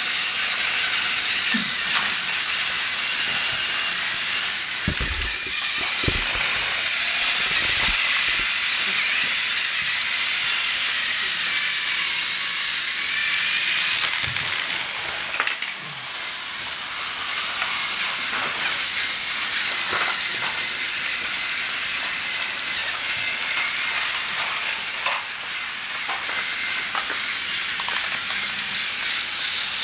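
Battery-powered TrackMaster toy trains running along plastic track, a steady whir of their small geared motors and wheels, with a few low knocks about five to eight seconds in.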